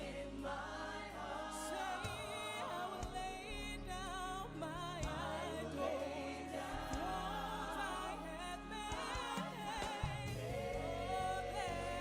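Live gospel worship singing: voices singing a slow worship song with vibrato over steady instrumental backing.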